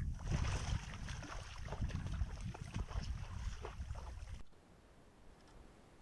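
Wind buffeting the microphone over water splashing as a live decoy duck bathes on the pond. About four and a half seconds in it cuts off suddenly to a much quieter outdoor hush.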